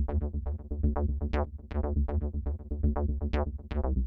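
Background electronic music: quick plucked synthesizer notes over a steady low beat.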